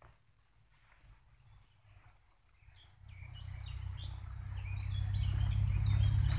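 Birds chirping faintly in the open air. From about three seconds in, a low rumble swells up beneath them and grows louder toward the end.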